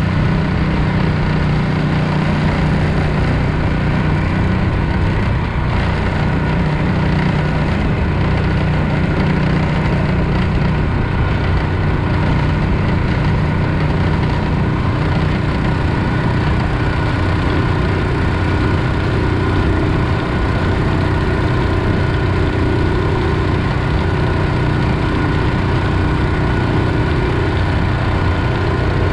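Longtail mud motor's Predator 420cc single-cylinder four-stroke engine running steadily under way, its note shifting slightly about ten seconds in.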